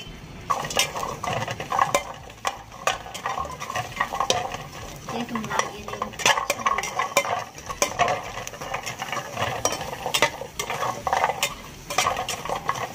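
Metal spatula stirring and scraping garlic cloves, shallots and lemongrass around the bottom of a dry metal pot, with a steady run of irregular scrapes and sharp metal-on-metal clicks.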